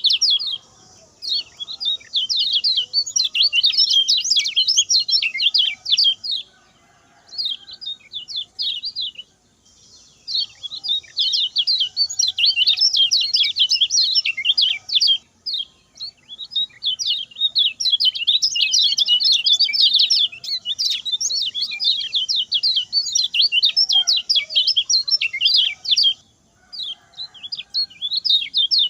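Common iora singing a fast, chattering song of rapid high notes in long bursts, broken by short pauses about six, ten, fifteen and twenty-six seconds in.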